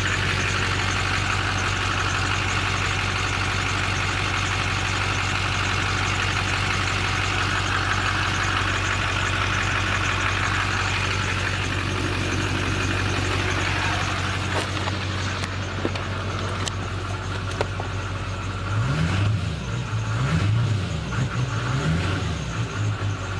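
A Duramax LB7 6.6-litre V8 turbodiesel idling steadily while still cold. About two-thirds of the way through the sound turns duller, heard from inside the cab rather than from under the truck.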